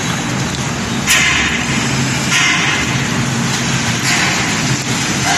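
A vehicle on the move: a steady low engine hum under road and wind noise, with a few louder hissing surges.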